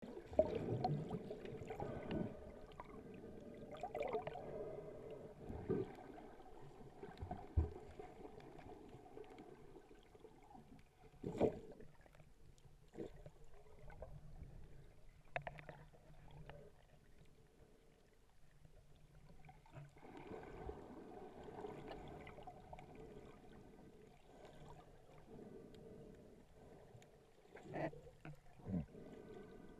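Muffled sea water heard by a camera held underwater, with sloshing and gurgling as a swimmer strokes and kicks nearby. Sharp knocks and thumps come now and then, two close together near the end.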